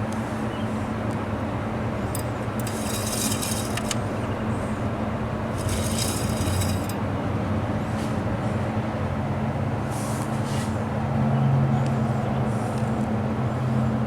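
A vehicle engine running steadily with an even low hum. Two short hissing noises come about 3 and 6 seconds in.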